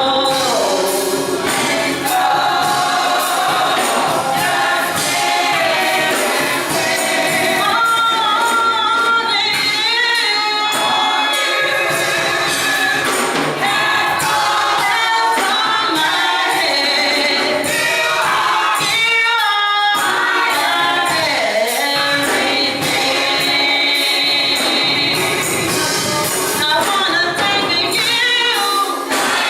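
Gospel choir singing together, with a rhythmic percussion beat behind the voices.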